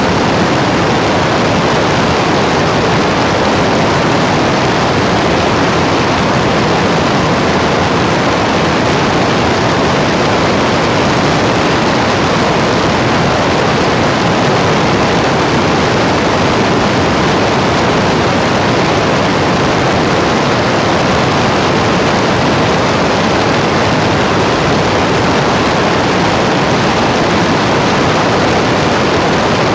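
A loud, unchanging rushing hiss of noise, like static, with no tone or rhythm in it.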